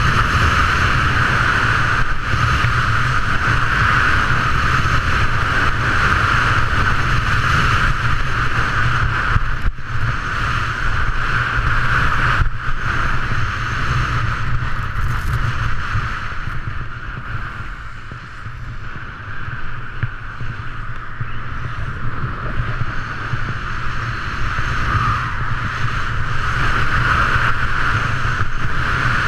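Wind rushing over an action camera and skis hissing over groomed snow during a fast downhill run. The noise is steady and eases off for a few seconds past the middle, then builds again.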